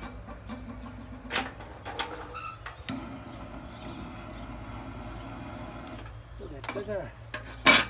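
Metal lid knocked twice onto a small wood stove, then a handheld gas torch hissing steadily for about three seconds as it lights the kindling inside. A sharp metallic clank near the end is the loudest sound.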